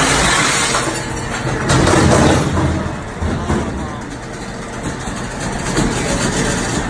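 Busy street traffic with a rear-loading garbage truck running at the curb, its engine a steady low hum under the traffic noise. The noise swells about two seconds in.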